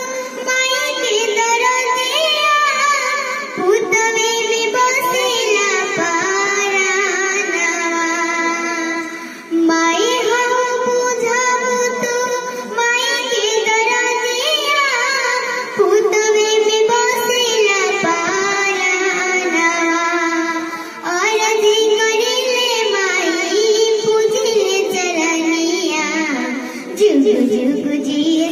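A young girl singing a melody in long phrases, with wavering held notes and slides between pitches.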